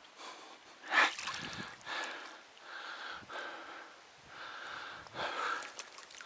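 A man's heavy, strained breathing close to the microphone while he exerts himself, in short puffs about every half second to second. A louder, sharper puff comes about a second in.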